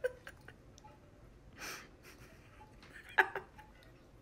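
Quiet room with a person's short breath about one and a half seconds in, and a brief sharp little sound about three seconds in.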